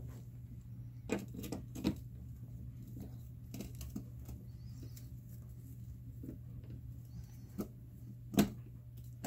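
Scattered light clicks and taps of small metal parts being handled while screws are driven into a GE oven door hinge assembly, with a sharper click near the end, over a steady low hum.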